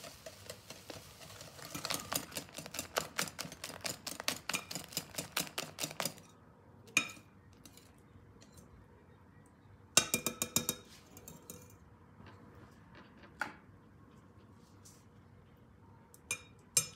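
Wire whisk beating banana batter in a glass mixing bowl, the wires clinking against the glass in quick even strokes, about five a second, that stop about six seconds in. A few separate clinks and a short rattle of taps follow.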